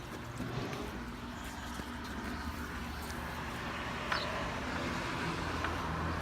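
Steady low engine hum of a motor vehicle running nearby, with a few faint short high chirps.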